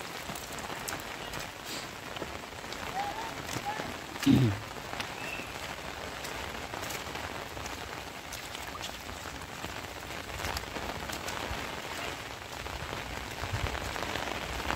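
Steady rain falling, with scattered sharp ticks of drops striking close by. A brief low sound, falling in pitch, stands out about four seconds in.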